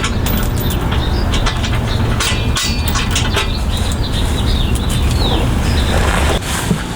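Hand ratchet clicking in quick runs as exhaust bolts are loosened, over a steady low hum.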